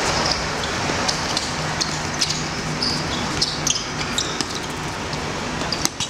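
Football play on a hard court: short squeaks of players' shoes and knocks of the ball being kicked, scattered over a steady background hiss.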